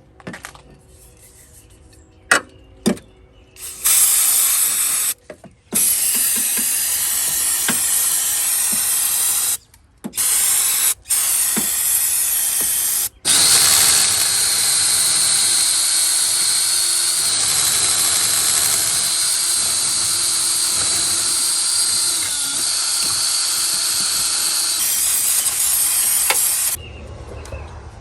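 A power tool running in long stretches with a steady hiss and a faint whine, used to clean up rusty brake parts. It starts about four seconds in after a few clicks, stops briefly several times, then runs without a break for about thirteen seconds before cutting off near the end.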